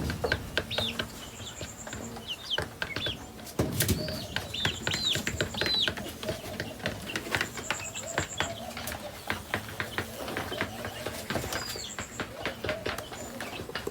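A pen of seven-week-old chickens peeping and calling, with many small clicks and taps from the birds moving about on sawdust litter. A short high rattle recurs every few seconds.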